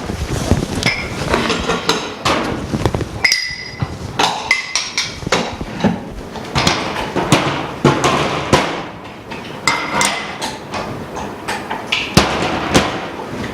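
Metal mold pieces clinking and knocking as the top and bottom molds of a phone-screen machine are swapped and screwed in place: many sharp knocks, several with a short metallic ring.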